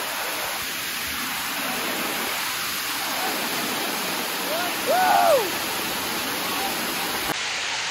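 Steady rushing of a waterfall pouring onto rocks. About five seconds in, a person's short call rises and falls in pitch over the water noise.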